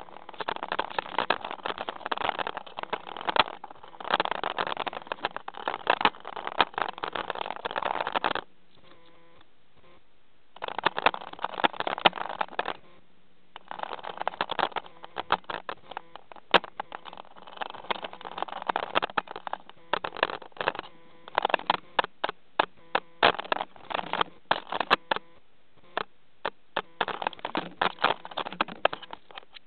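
Pet budgerigar pecking and nibbling at a camera right against its microphone: runs of quick clicking taps and scratching, with a few sharper clicks and a couple of short pauses.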